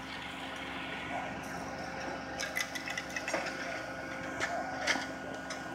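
Steady hum with a few fixed tones from idling vehicles. From about halfway through come scattered clicks and rubbing, handling noise on the recording phone's microphone.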